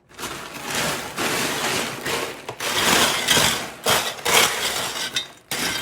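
Cooling caramel-coated popcorn being stirred and turned over, a dense crunchy rustling that swells and eases in uneven waves.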